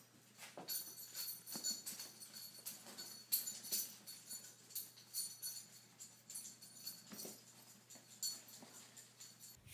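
Irregular metallic jingling: many short, uneven shakes of small bells or metal pieces ringing high and bright.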